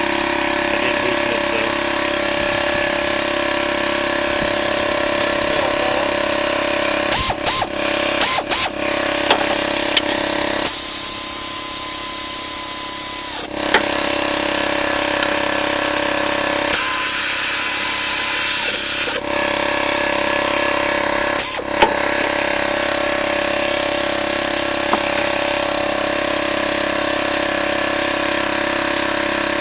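A power tool driving in the timing belt tensioner bracket bolts: a few quick blips, then two longer runs of about three and two and a half seconds, and one last short blip. A steady mechanical hum runs underneath.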